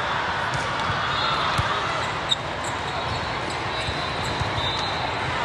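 Game sounds in a gym: a ball bouncing on the court and sneakers squeaking over a steady murmur of crowd chatter, with one sharp smack a little over two seconds in.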